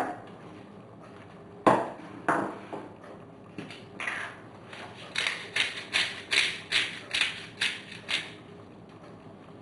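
Two sharp clinks, then a hand pepper mill twisted over the soup pot, grinding pepper in about eight short strokes at two or three a second.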